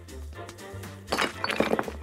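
Background music, with a toy's packed-sand dig block crumbling and crackling under fingers from about a second in, a quick run of small crunchy clicks.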